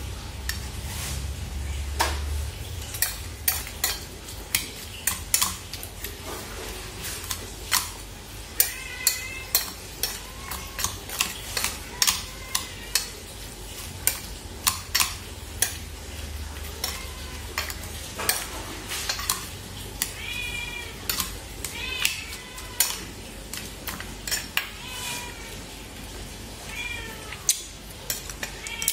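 A metal spoon and wooden chopsticks clink and scrape against a stainless steel bowl as seasoned fish pieces are stirred, in many quick taps. A cat meows several times, mostly in the second half.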